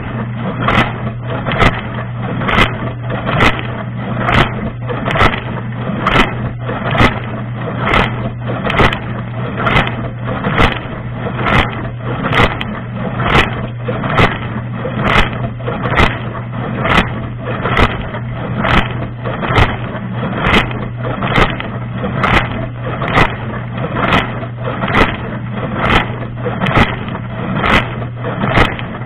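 Dishwasher running a wash cycle, heard from inside the tub: a steady pump hum under the hiss of spraying water, with a regular swish about one and a half times a second as the rotating spray arm sweeps past.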